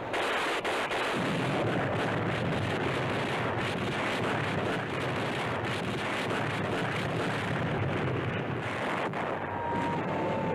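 A steady rushing noise like wind, with faint crackles through it. A held musical tone comes in near the end.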